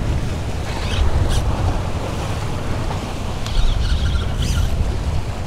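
Wind buffeting the microphone in a steady low rumble, with surf washing against jetty rocks.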